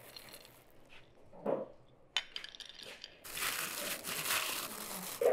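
Thin plastic bag crinkling as a hand rummages in it and scoops out shelled walnuts, with a few light clicks and knocks first and a longer stretch of rustling from about three seconds in.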